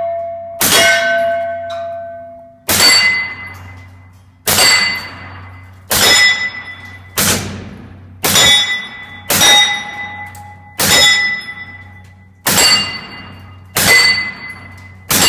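A suppressed SIG P226 9mm pistol fires subsonic rounds at steel plates, about eleven shots spaced a second or so apart. Each hit clangs and rings on the steel, fading over a second or more, and the ringing is the main sound rather than the muffled report.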